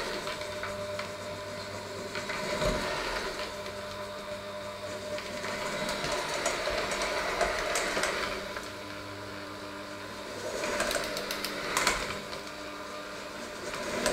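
Electric hand mixer running and kneading a stiff dough in a stainless steel bowl. Its motor hums steadily, and the sound swells and eases several times as the hooks work through the dough.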